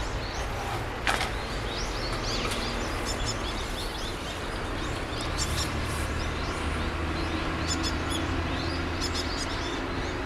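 Many small birds chirping and twittering, short repeated calls throughout, over a steady low background rumble. A single sharp click about a second in.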